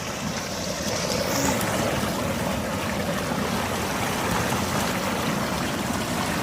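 Rushing water in a rain-swollen, overflowing irrigation channel: a steady rush that grows louder over the first second, then holds.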